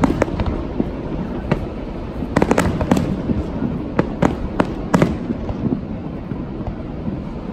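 Aerial fireworks shells bursting: a series of sharp bangs and cracks coming in quick clusters, the densest runs about two and a half seconds in and again around four to five seconds in, over a steady low background rumble.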